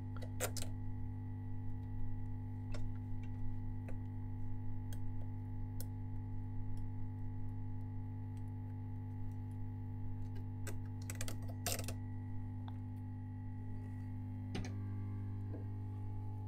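Metal tweezers clicking and scraping against a plastic e-reader frame as softened old double-sided tape is picked off, in scattered small clicks with a quick run of them about eleven seconds in. A steady low hum runs underneath.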